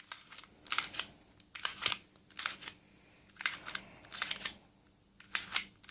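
Lockwood 355 deadlock mechanism being worked by hand, giving small clusters of sharp metallic clicks and clacks with short pauses between them.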